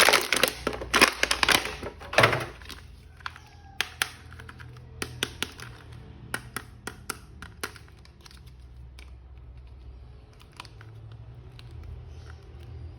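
Plastic toy packaging and action-figure parts being handled: a dense run of crackles and sharp clicks for the first couple of seconds, then scattered single clicks and snaps.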